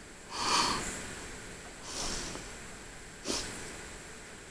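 A Yorkshire terrier snorting through its nose three times, about a second and a half apart, the first the loudest and longest.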